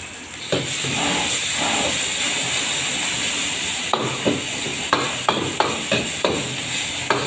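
Chili paste sizzling in hot oil in a wok, a steady hiss that starts about half a second in. A metal ladle stirs and scrapes it, knocking against the wok about twice a second in the second half.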